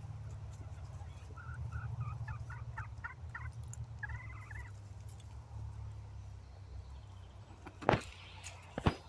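Chicken calling: a quick run of short notes followed by one longer, curving note, over a steady low rumble. Two sharp knocks near the end, the loudest sounds.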